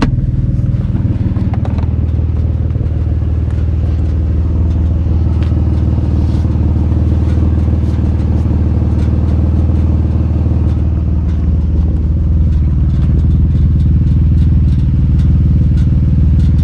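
Nissan 350Z's V6 engine running steadily at a low, even speed, with scattered light ticks; the engine gets a little louder near the end.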